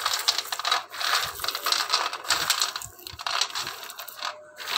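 Dry-roasted peanuts rubbed and stirred by hand in a stainless steel tray to loosen their skins. The nuts make a dense clatter and crackle against the metal, with a couple of short pauses.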